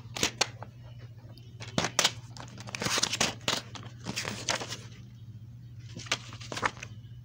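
Plastic DVD case and its paper insert being handled: scattered clicks and crinkling rustles, busiest between about two and four and a half seconds in and again about six seconds in, over a steady low hum.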